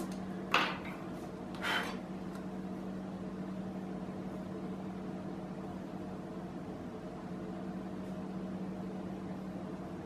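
Steady low hum of a household appliance running, one tone with a few fainter overtones above it. Two short scuffs come in the first two seconds.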